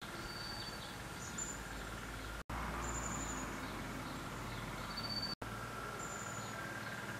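Quiet rural outdoor ambience: a faint steady hum with short, high, even-pitched chirps every second or two, from birds or insects. The background drops out for an instant twice, at the cuts between shots.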